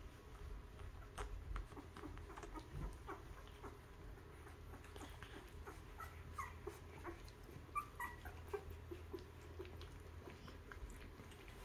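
Two-week-old puppies nursing, giving faint short squeaks and whimpers, several in a row in the second half, among soft clicks of suckling.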